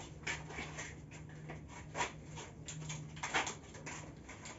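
Scattered soft knocks and scrapes of paintbrushes being dipped in a paint tin and worked along window frames, with a faint low hum behind.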